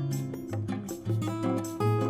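Instrumental background music: a bass line that changes note about every half second under sustained pitched notes, with a steady percussive beat.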